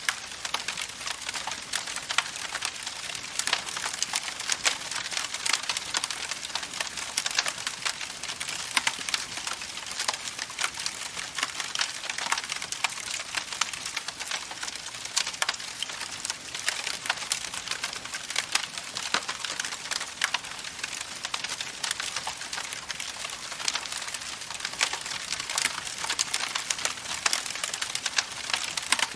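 Campfire crackling: a steady hiss with dense, irregular pops and snaps.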